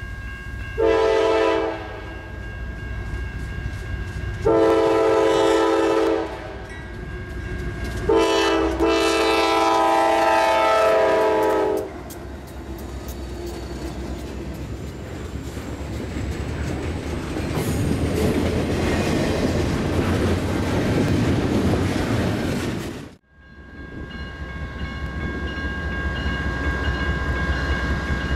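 Diesel freight locomotive's air horn sounding three blasts: a short one, a longer one, then a long one of nearly four seconds. Then a double-stack container train rumbling and clacking past. After a sudden cut near the end, another freight's diesel locomotives approach with a rising rumble.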